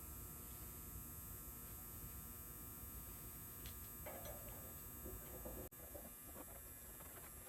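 Faint steady electrical hum, with a few light scratchy noises past the middle and an abrupt break just after.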